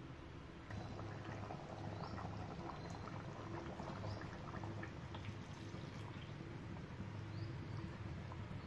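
Thick first-press coconut milk being poured into a simmering egg curry in a steel pot, the last addition before the curry is served, over a steady low hum.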